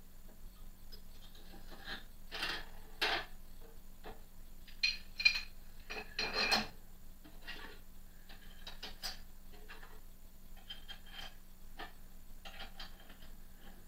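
Steel DRO readout mounting arm and bracket being handled and fitted: scattered clicks, knocks and rubbing of metal on metal, with a few ringing metal clinks about five to six and a half seconds in.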